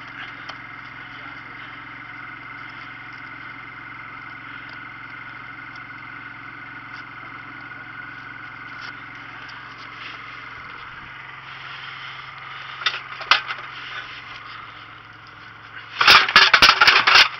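Steady hum of a motor running on the boat, with a few small scrapes and clicks. About a second before the end comes a burst of loud clattering knocks.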